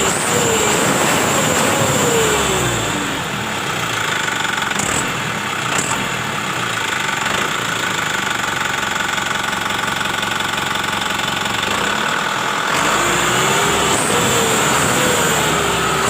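Isuzu Giga truck's diesel engine running through a newly fitted flexible exhaust pipe. It is revved in a string of short blips, each dropping back in pitch, near the start and again near the end, and settles to a steadier idle in between.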